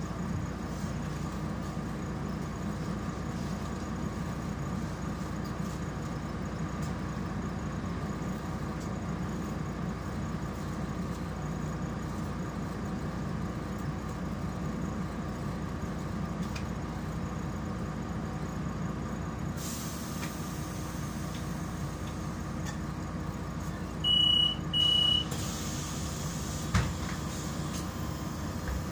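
Solaris Urbino 12 III city bus idling at a stop, heard from inside the cabin. About twenty seconds in a hiss of air starts, then two short high beeps warn that the doors are closing, and a single knock follows near the end as they shut.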